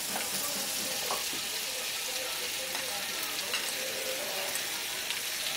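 Spiced masala sizzling in hot mustard oil in a wok as a heap of shredded bottle gourd is tipped in, a steady sizzle with a few light clicks of the pieces landing.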